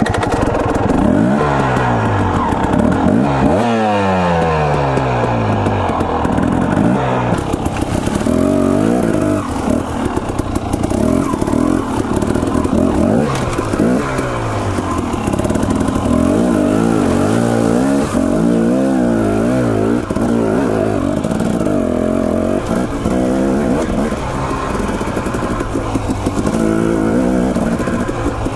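Dirt bike engine being ridden hard, revving up and easing off over and over, its pitch climbing in repeated sweeps and dropping back as the throttle closes.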